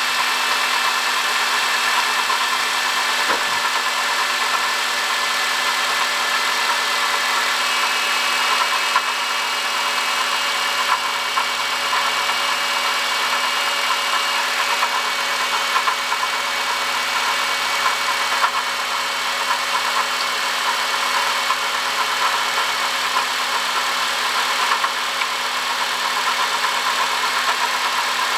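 Honda Odyssey engine idling steadily with a continuous high whine from a failing water pump.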